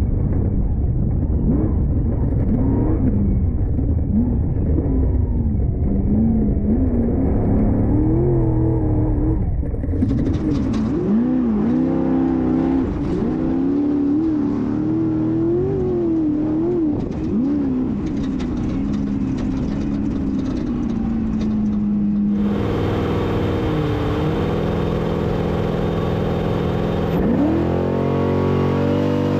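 Off-road race car engine revving hard, its pitch rising and falling every second or so. The sound changes abruptly about ten seconds in and again about twenty-two seconds in. Near the end a steadier engine note drops and then climbs again.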